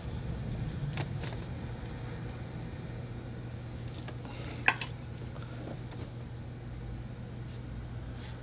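Steady low hum of room tone, with faint scrapes of a watercolor brush working on paper and one sharp tap a little past halfway.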